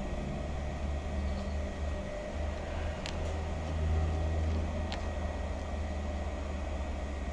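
Union Special 35800 feed-off-the-arm chainstitch machine running as it sews a double seam in denim, with a steady low motor hum that swells and dips. Two sharp clicks sound about three and five seconds in.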